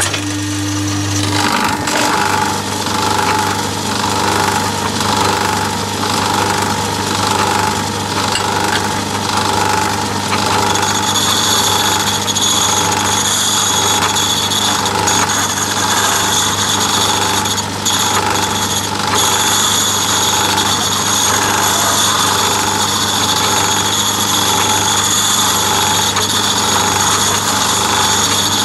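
Metal lathe switched on and running steadily, spinning a diamond lapping wheel in its chuck with a low hum. About eleven seconds in a high whine joins as a carbide-tipped tool is held against the wheel to lap a radius on its end, breaking off briefly twice a little later.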